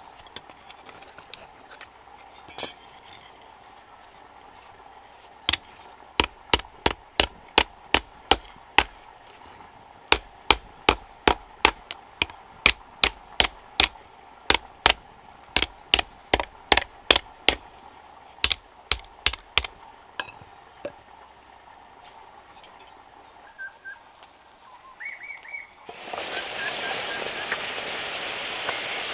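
A long run of hammer strikes on metal, each ringing sharply, about two to three blows a second with a couple of short pauses. A steady hiss starts near the end.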